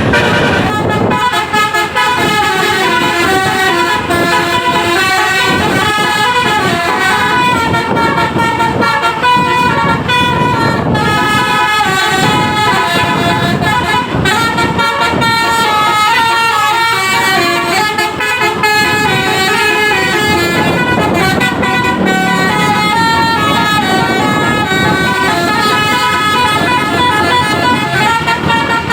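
An Indonesian bus's basuri telolet horn, a multi-trumpet air horn, plays a tune of quickly changing notes without a break.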